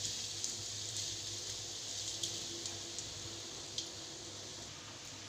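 Sliced shallots and garlic sizzling in oil in a wok: a steady frying hiss, with a few light clicks of a metal spatula against the pan in the first four seconds.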